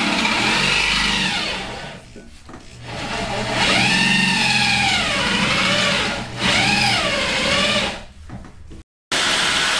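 Corded electric drill with a 7/16-inch bit enlarging a hole through the car's steel underbody. The motor whine rises and falls in pitch as the bit loads up and frees. It slows and eases off about two seconds in, then runs hard again, and slackens near the end.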